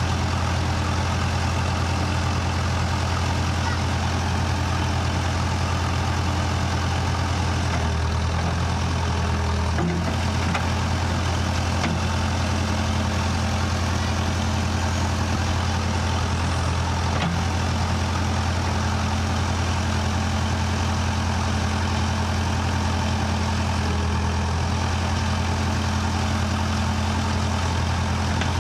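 Backhoe engine running steadily, its note shifting briefly a couple of times, with a few light knocks.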